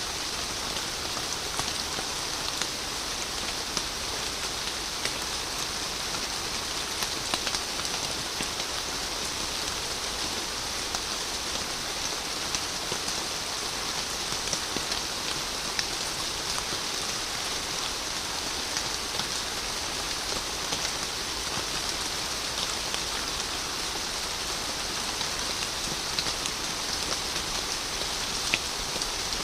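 Steady rain falling, an even hiss with many separate drops ticking on a surface.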